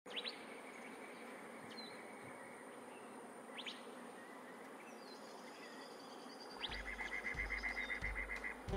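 Desert nature ambience with a steady high insect buzz and a few scattered bird chirps. A fast run of repeated chirping notes and a low rumble come in about seven seconds in.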